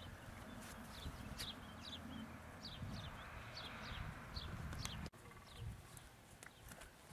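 A grey mare's hooves thudding softly on a sand arena as she is ridden at walk and trot, over a low outdoor rumble, with short high chirps repeating about twice a second. The sound drops out briefly about five seconds in.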